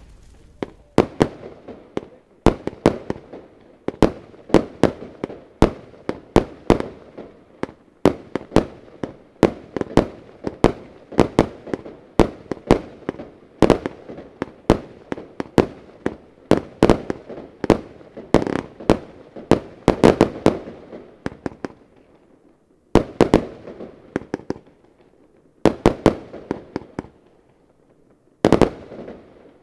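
Lesli 'Tsunami of Gold' 144-shot 25 mm compound firework cake firing, sharp shots and bursts following each other several times a second. Near the end the shots come in short separate volleys with brief pauses between them.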